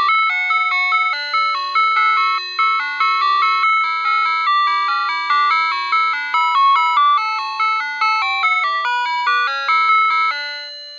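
Toy steam locomotive's electronic sound chip playing a tune of short, bell-like notes, each struck and fading, about two a second. The tune stops shortly before the end.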